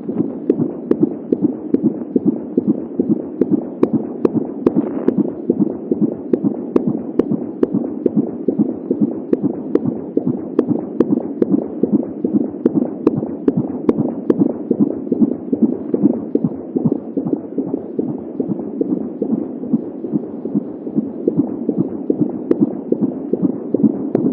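Fetal heartbeat at 23 weeks picked up by an Angel Sounds home fetal Doppler: a fast, even whooshing pulse that runs without a break, with scattered sharp clicks.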